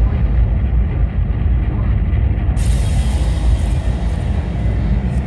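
Soundtrack of a planetarium dome film: a loud, deep rumble of sound effects with music under it. About halfway through, a hiss joins and the sound becomes brighter.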